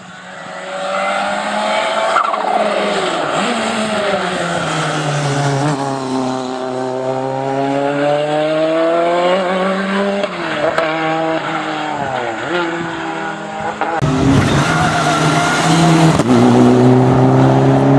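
Hillclimb race car engines at full effort. First, one car's engine climbs in pitch, falls away in a long sweep as it comes off the throttle through a bend, and climbs again on acceleration. About 14 s in, a cut brings a louder second car, a turbocharged four-cylinder Mitsubishi Lancer Evolution, running hard at high revs close by.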